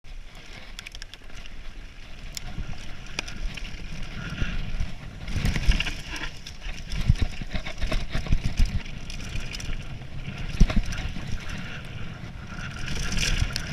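Mountain bike rolling fast down a dirt singletrack, heard from a camera on the bike: wind buffeting the microphone and tyres crunching over dirt, with frequent knocks and rattles from the bike over bumps. It grows louder over the first few seconds as the bike picks up speed.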